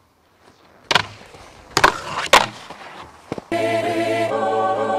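A snowboard sliding over packed snow and striking a metal-edged terrain park box, giving sharp knocks and clacks about a second apart with scraping between them. About three and a half seconds in, music with held sung chords begins.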